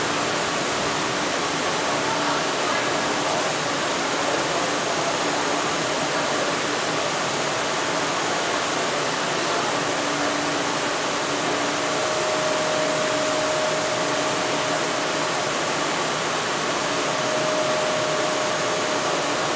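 Steady, even rushing noise with a faint hum running through it. It holds level throughout, with no rise or fall of a passing train.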